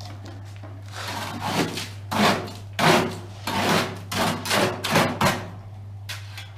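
A hand tool scraping repeatedly over sand and cement screed while the floor is levelled, about two strokes a second for several seconds, then stopping. A steady low hum runs underneath.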